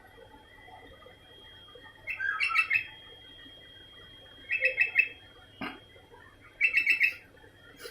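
Sooty-headed bulbul (kutilang) calling in three short bursts of quick, repeated chirping notes, a couple of seconds apart. A single brief knock comes between the second and third bursts.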